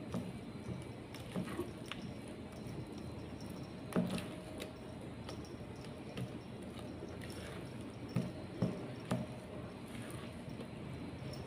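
Silicone spatula stirring a thick, wet prawn-and-flour batter in a plastic bowl, with steady squelching and scraping. A few sharp knocks come through, one about four seconds in and three close together later.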